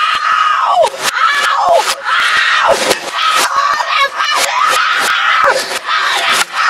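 A boy screaming and shouting in a strained, high voice, played backwards, so the screams fall away in pitch several times. Sharp knocks, typical of a computer keyboard being struck, come in among the screams.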